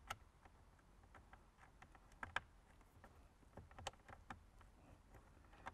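Faint, irregular small clicks and taps of hands working a speaker and its screws into the center-channel opening on top of a car dashboard.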